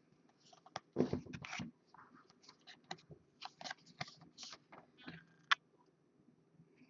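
Trading cards and their foil pack wrapper being handled: a run of short rustles, crinkles, scrapes and clicks, the loudest crinkle about a second in.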